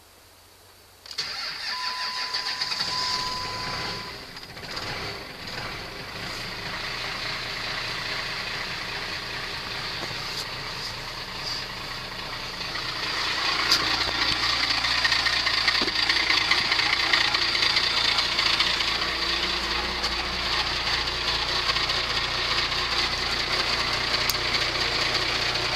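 1998 12-valve Cummins 5.9-litre inline-six diesel starting cold with no block heater and no ether, catching about a second in and running on; it gets louder about halfway through.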